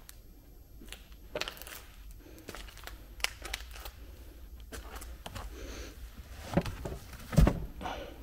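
Scattered clicks, rustles and knocks of hands handling objects among clutter, with a dull thump about seven seconds in.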